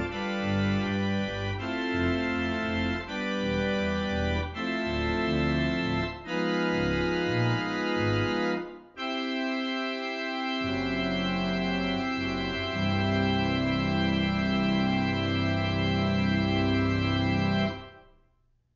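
Two-manual church organ playing full chords over a pedal bass line. After a brief break about nine seconds in, a final chord is held, with a low pedal note coming in under it, and then released near the end.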